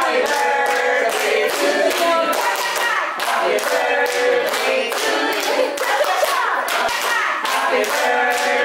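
A group of people singing together while clapping their hands in a steady rhythm.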